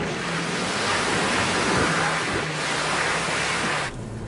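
Off-road vehicle driving through mud and puddles: a steady rush of splashing water and tyre noise over a low engine hum. About four seconds in it drops to a quieter engine hum heard from inside the cabin.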